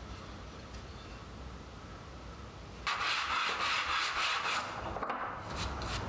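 Wooden saw handle rubbed back and forth on sandpaper taped flat to the bench, a scratchy sanding noise in rhythmic strokes that starts suddenly about three seconds in. Quicker, evenly spaced rubbing strokes follow near the end.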